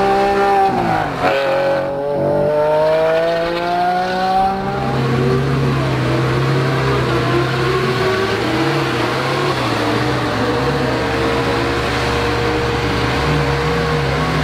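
Lamborghini Veneno's V12 engine: the revs drop in a gear change about a second in, then climb steadily through the gear for about four seconds. After that the engine runs at low revs with small throttle blips.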